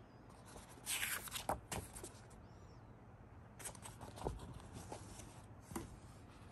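Paper rustling and crackling as the pages of an old paper-bound book are turned and the book is closed, in two bouts: about a second in, and again from about three and a half seconds.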